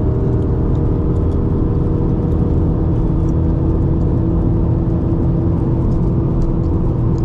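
Steady road and engine noise inside the cabin of a 2004 Subaru WRX driving along: a constant low rumble of tyres and drivetrain with a steady hum.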